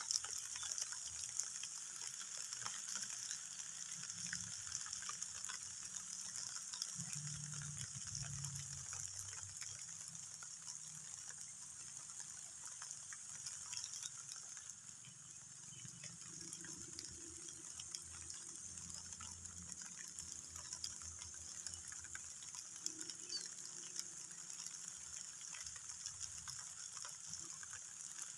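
Rain falling steadily: a constant hiss with many small drops pattering.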